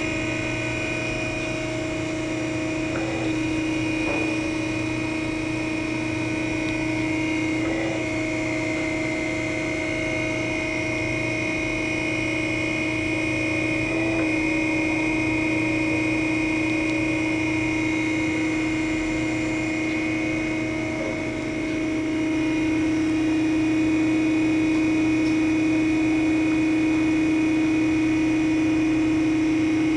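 Harig EZ-Surf surface grinder running with its table reciprocating under hydraulic power and the grinding spindle turning: a steady whine of several tones, with brief dips every few seconds as the table reverses.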